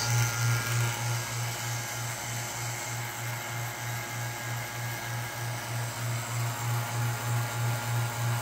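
DIY magnetron sputtering rig running under vacuum: a low mechanical hum that pulses evenly about three times a second, over a steady hiss.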